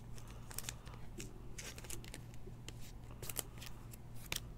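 A trading card being handled with a clear plastic sleeve and set down on a stack of cards: scattered light plastic rustles, slides and small taps, over a low steady hum.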